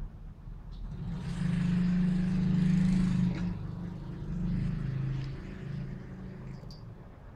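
Miniature pinscher growling while play-fighting with a cat. There is one long, rough growl of about two seconds, then a shorter, weaker one, with a couple of faint clicks.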